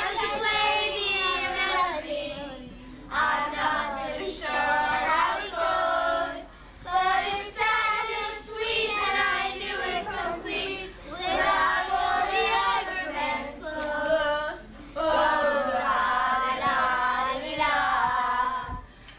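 A group of children and teenagers singing together in phrases, with short pauses between them.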